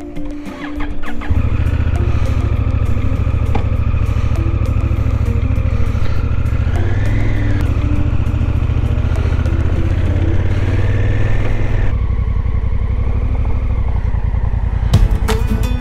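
Motorcycle engine running under way as the bike rides off, coming in loud about a second in. Its pitch rises and falls briefly around the middle.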